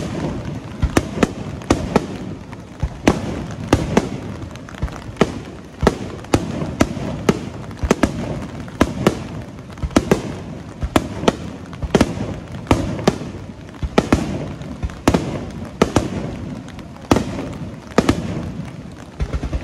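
Aerial firework shells from Kikuya Obata Fireworks launching and bursting in quick succession: sharp bangs one or two a second, with a low rumble of echoes between them.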